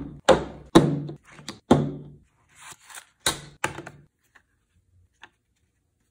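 Cardboard gun box and its contents being handled and set down on a hard tabletop: about five hollow thunks in the first four seconds, with brief scraping between them, then only a few faint ticks.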